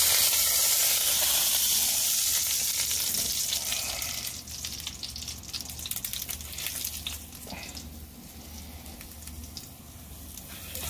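Floured rabbit pieces frying in hot oil in a pan: a loud sizzle that dies down after about four seconds to faint crackling with scattered pops.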